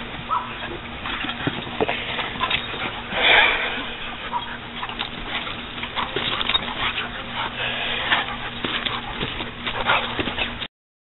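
Several dogs play-fighting, with dog noises, scuffling and rustling and a louder noisy burst about three seconds in; the sound cuts off abruptly near the end.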